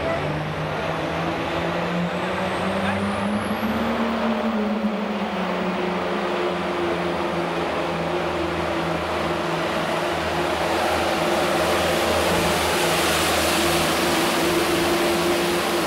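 Case IH Super Farm pulling tractor's diesel engine revving up and then running hard under load while it pulls the weight-transfer sled, with a rushing noise that grows louder in the second half. A faint high whine climbs steeply about three seconds in.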